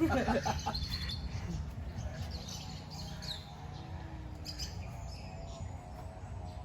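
Small birds chirping now and then over a steady low background rumble, with a brief voice at the very start.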